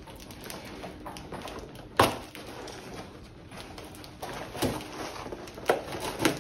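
Cardboard shipping box being handled and opened, with one sharp knock about two seconds in and a few lighter clicks and rustles near the end.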